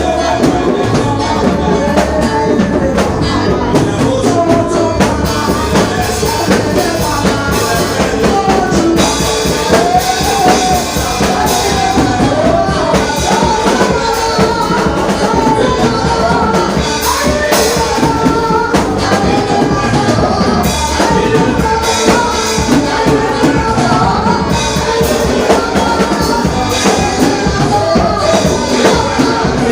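Live church praise music: voices singing over a band with drum kit, playing steadily throughout.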